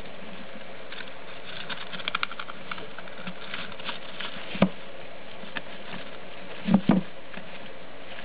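Young steppe lemmings scrabbling and running in a wire exercise wheel: small feet patter and click on the metal rungs and the bedding. There is a louder knock about halfway through, and two more close together near the end.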